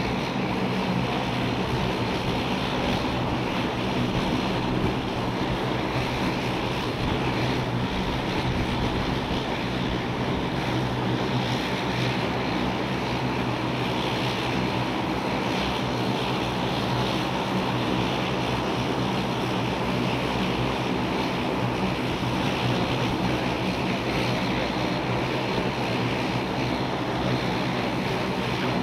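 Dash 8 Q400's two Pratt & Whitney Canada PW150A turboprop engines idling steadily, with a low hum from the turning propellers. Wind noise on the microphone.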